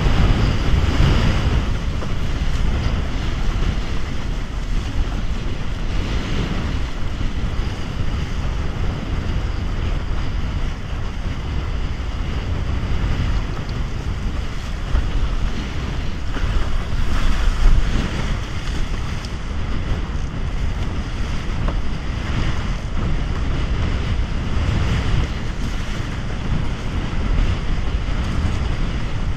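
Strong wind buffeting the microphone, mixed with water rushing and splashing along the hull of a Bic Bamba windsurf raceboard sailing fast through choppy water. The rush rises and falls every few seconds.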